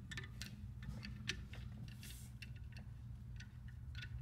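Faint, irregular metallic clicks and ticks of a worm-drive hose clamp being loosened on a power steering hose, over a low steady hum.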